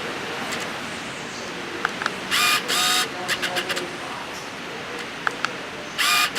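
Steady hurricane wind and rain noise, broken twice by short mechanical buzzing bursts from the DSLR camera, with a few faint clicks.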